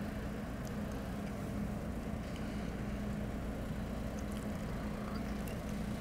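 Room tone of a large hall: a steady low hum with a constant low tone and a few faint clicks.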